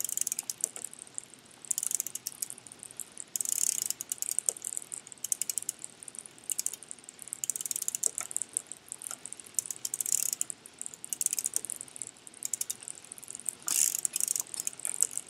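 Home exercise bike's pedal and flywheel mechanism clicking and rattling as it is pedalled, in repeated bursts of rapid clicks every second or two.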